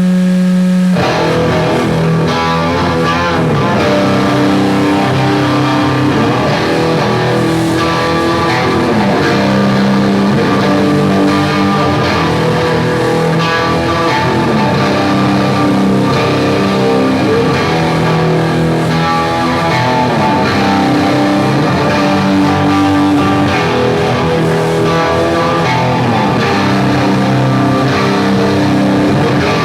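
A live metal band playing loud, slow, heavy doom riffs on distorted electric guitars and bass. A single held note sounds first, and the full band comes in about a second in with long sustained chords.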